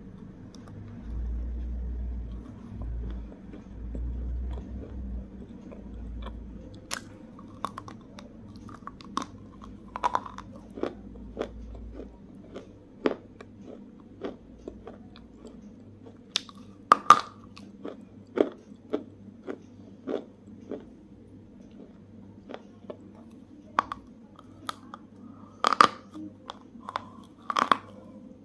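Close-up crunching and chewing of a KitKat wafer bar: sharp, crisp crackles at irregular intervals, loudest in the second half. A low rumble runs through the first several seconds.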